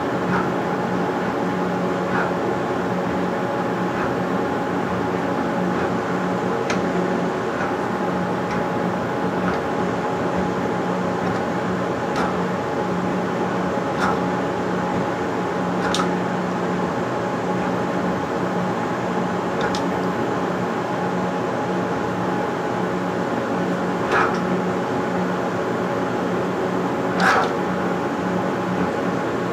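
CNC drawing machine's stepper motors humming steadily with a few fixed tones as the machine moves a fountain pen over paper. Occasional sharp clicks break in, the loudest near the end.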